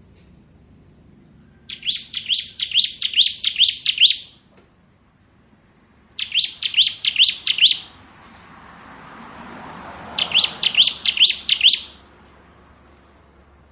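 Bar-winged prinia (ciblek) singing three quick, rattling phrases. Each phrase is a string of sharp rising notes, about three to four a second, and lasts about two seconds.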